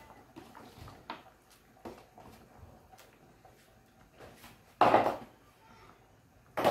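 Kitchen handling noise: faint clicks and rustles, then two loud clunks about two seconds apart near the end, as a plastic basin and kitchen things are set down on a tiled counter.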